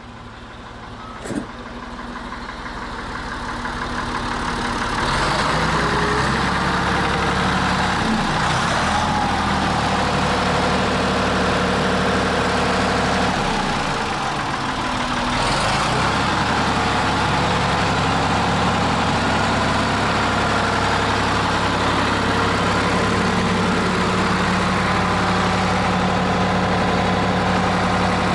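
The 1978 Ford 555 backhoe's engine running after being restarted on a fresh battery. It grows louder over the first few seconds, then runs steadily, with a couple of brief changes in engine speed.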